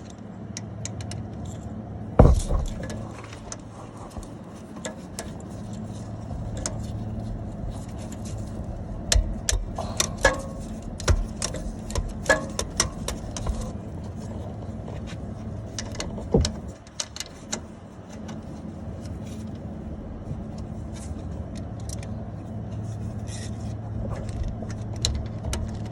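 Metal hand tools clinking, clicking and knocking in a car's engine bay as bolts on the A/C compressor hose are undone with a socket and wrench, over a steady low hum. The clicks come irregularly, with a louder knock about two seconds in and another near the middle.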